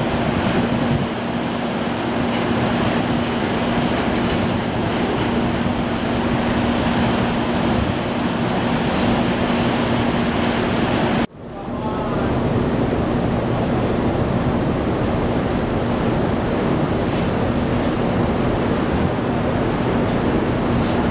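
Steady rush of wind and churning water on a ferry's deck, under a steady low hum from the ship's engines. The sound drops out for an instant about eleven seconds in, then carries on.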